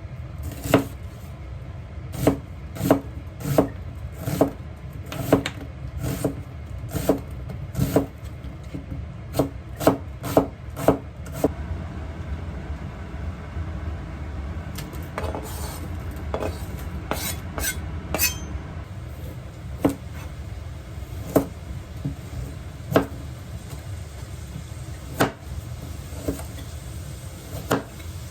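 Kitchen knife chopping on a wooden cutting board: sharp knocks, about one or two a second for the first dozen seconds, then sparser, over a steady low hum.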